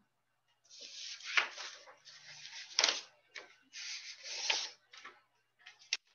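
A series of rustling, rubbing noises in short bursts, with a few sharp clicks among them, the loudest about a second and a half in and just before three seconds.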